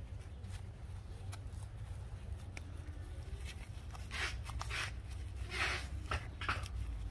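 Gloved hands squeezing a thin plastic nursery pot to free a string-of-pearls root ball, giving a handful of short crackles and rustles of plastic and loose potting soil, bunched in the second half, over a steady low rumble.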